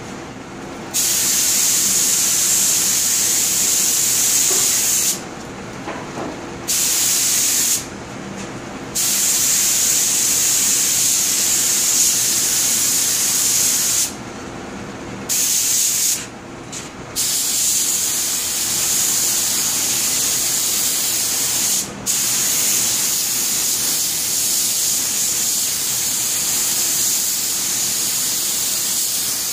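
Paint spray gun hissing as it lays white paint on the wicker, in long bursts broken by several short pauses where the trigger is let go.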